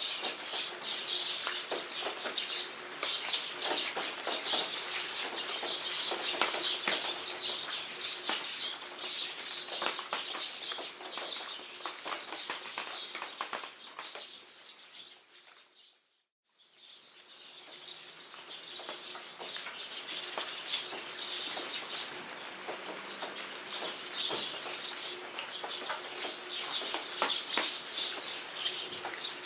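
Steady rain pattering, with many birds chirping over it. About halfway through, the whole sound fades out to a moment of silence, then fades back in.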